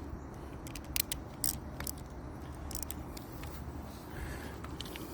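Sharp little clicks and light scraping from hands working a bicycle's rim-brake pad and its mounting hardware while the pad is repositioned, with a cluster of clicks about a second in and a few more near the middle.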